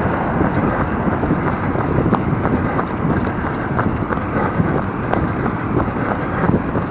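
Wind buffeting the microphone of an action camera carried by a runner: a steady rush with the jolts of running steps in it.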